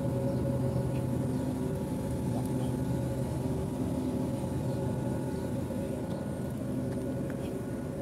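Steady hum of rooftop air-conditioning equipment running: an even low rumble with several steady tones and no change in speed.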